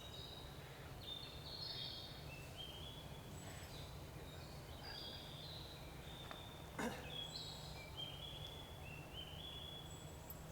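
Songbirds singing, short whistled phrases repeating every second or two, over a steady low background rumble; a single sharp click about two-thirds of the way through.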